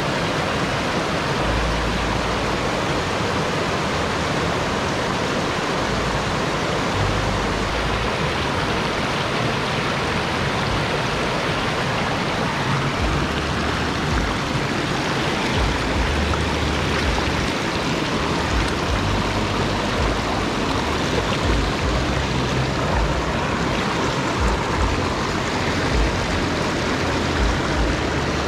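Shallow rocky mountain stream rushing over boulders and stones: a steady hiss of running water. Irregular low rumbles come and go underneath.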